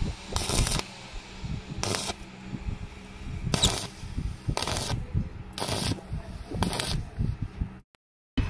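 Stick-welding arc crackling in about six short bursts, roughly one a second, as a small stainless steel square rod is spot-welded onto a stainless rod shaft. The sound cuts off suddenly near the end.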